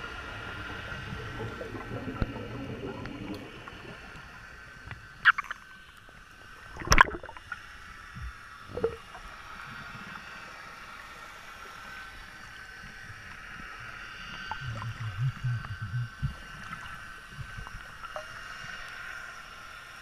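Underwater sound picked up through a GoPro's waterproof housing just below the surface: a steady hum over low water rumble, with a few sharp knocks between about five and nine seconds in and a short low gurgle of water near the three-quarter mark.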